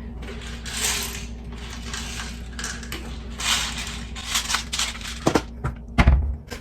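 Kitchen handling noises during steak prep: several short bursts of crinkling, then two sharp knocks near the end, the second a heavy thump and the loudest sound.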